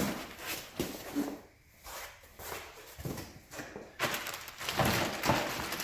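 A cardboard shipping box and its packing material being handled as parts are lifted out: irregular knocks and scraping, with denser rustling and scraping in the last two seconds.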